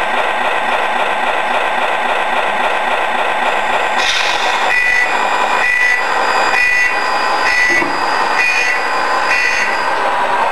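Radio-controlled Mercedes truck's electronic sound unit playing a steady diesel engine sound. From about four seconds in, a reversing beeper sounds about six times, roughly once a second, as the truck backs away.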